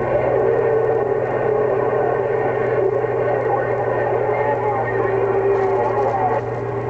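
CB radio receiver picking up a keyed signal that comes through as steady hiss with a low hum and several held whistling tones, with no clear words. The signal drops out about six and a half seconds in.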